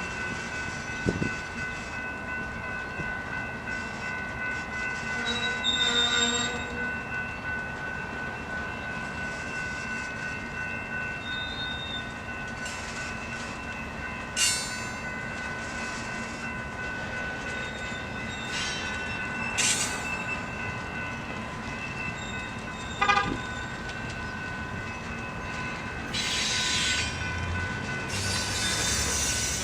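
Freight train cars rolling past, steel wheels squealing in several steady high tones over the rumble of the cars, with a few brief louder squeals and clicks.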